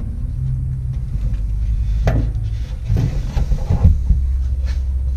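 Small screwdriver ratchet with a Phillips bit clicking and knocking as it works at the screws holding a truck's fuel sending unit to the top of the fuel tank, trying to break them loose. There is a sharp knock about two seconds in and a cluster of knocks between three and four seconds, over a steady low rumble.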